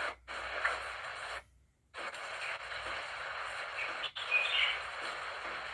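Birds chirping over a steady hiss, with a cluster of chirps about four seconds in. The sound cuts out twice near the start, once for about half a second.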